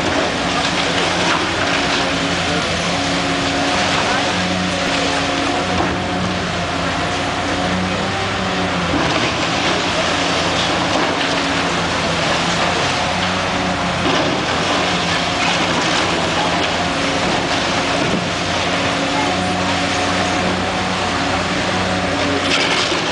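High-reach demolition excavator running as its long boom works at a concrete building, the engine note shifting up and down as the load changes, over a steady din of machinery.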